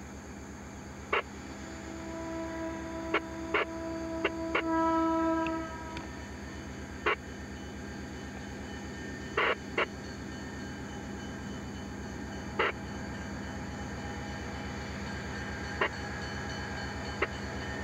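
Freight diesel locomotive passing a grade crossing, its air horn sounding one long chord about two seconds in that lasts some three and a half seconds and is loudest near its end. A low engine rumble grows slowly louder underneath, with scattered sharp clicks.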